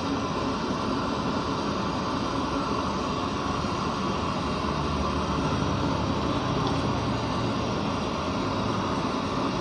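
Gas stove burner running with a steady, rather noisy rushing sound under a pot of broth.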